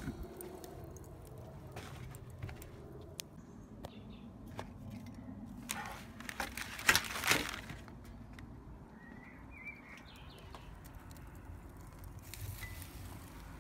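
Wood fire crackling in a wood-fired pizza oven, with sparse sharp clicks. A brief clatter about six to seven seconds in, and a short bird chirp a little after the middle.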